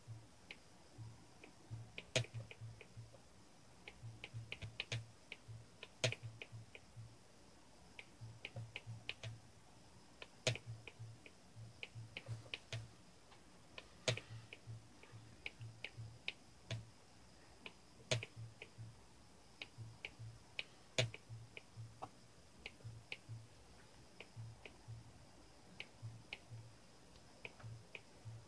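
Homemade star-of-David magnet motor with copper coils running on test: rapid, uneven clicking with short pulses of low hum, and a louder click every four seconds or so.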